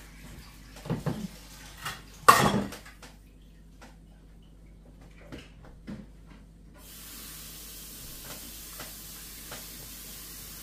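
Metal cake pan and kitchenware clattering on a table, with one loud clank about two seconds in and a few small knocks after. About seven seconds in a steady hiss starts and keeps going.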